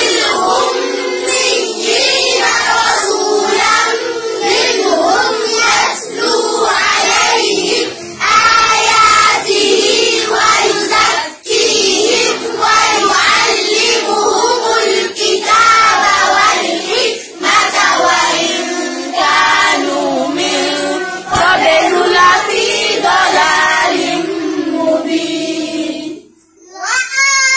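Many young children's voices chanting together in unison, loud and continuous. The chanting breaks off briefly near the end.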